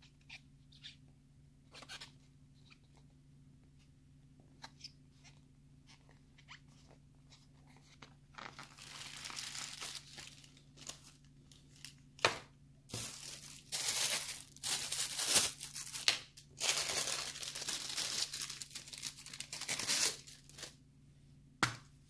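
Plastic takeout packaging, a carry bag and a clear plastic lid, crinkling and rustling as it is handled. First come a few light clicks, then loud crinkling in bursts through the middle and later part, and a sharp click near the end.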